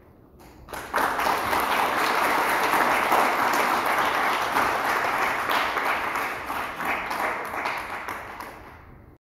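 Audience applauding, starting suddenly about a second in and slowly fading out near the end.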